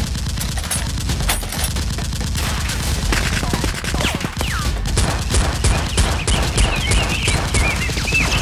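Gunfire sound effects of rapid, continuous shooting. From about five seconds in, a steady burst runs at about five shots a second.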